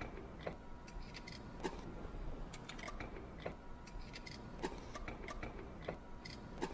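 Light, irregular metallic clicks and ticks, a few per second, as steel nuts and washers are set and threaded by hand onto the stay bolts of a Grundfos CR pump's motor stool.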